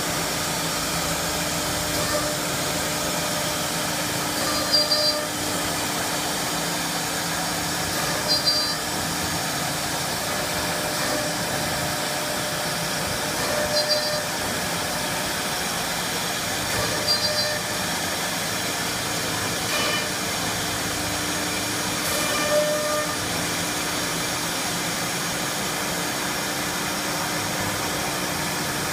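Spindles of a four-spindle 1325 CNC wood router running and cutting particle board: a steady hiss and whine, with short louder tonal spurts every three to five seconds.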